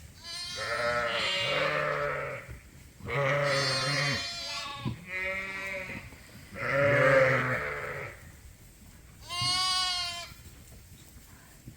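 Suffolk lambs bleating: four separate calls, the first three long and low, the last shorter and higher-pitched.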